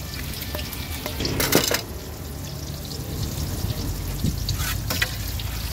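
Stone pestle scraping and stirring peanut sauce around a plate, with a loud knock or clatter about one and a half seconds in and a shorter one near the end.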